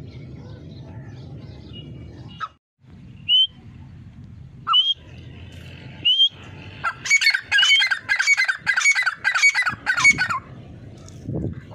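Grey francolin calling: three short rising notes, then a fast run of about eight loud, harsh repeated calls lasting some three seconds.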